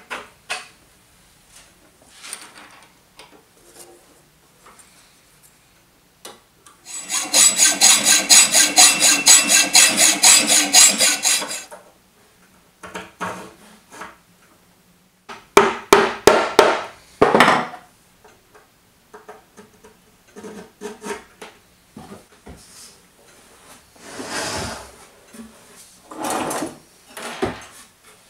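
Hand-tool work on the motor mounting: about five seconds of fast, even rasping strokes near the middle, about three a second and the loudest sound here. Then a few sharp knocks and short scrapes, with quieter scraping and knocking elsewhere.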